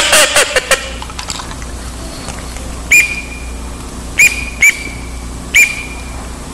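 Duck call whistle blown to imitate teal. It opens with a loud quick run of short notes, then gives four single short, high peeps spaced about a second apart.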